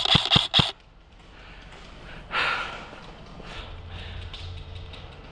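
A quick string of about four airsoft rifle shots, sharp evenly spaced cracks, that stops less than a second in. About two and a half seconds in comes a short, breathy exhale.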